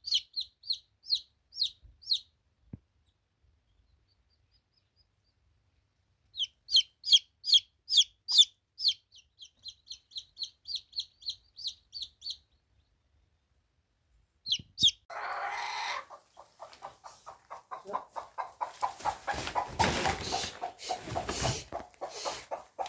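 Chickens: chicks peeping in runs of short high cheeps with silent gaps between, then a lower, rapid clucking with rustling from about fifteen seconds in.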